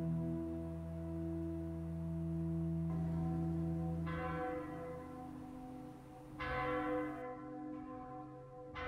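Church bell tolling: three strikes about two and a half seconds apart, each ringing on, the first about four seconds in. A steady low musical drone underneath fades out soon after the first strike.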